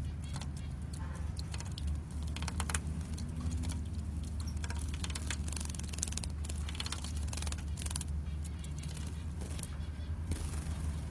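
European goldfinches bathing in a shallow tray of water: irregular bursts of splashing and wing flutter, over a steady low hum.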